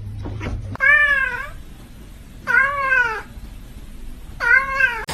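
A cat meowing three times, about two seconds apart, each meow short and clear.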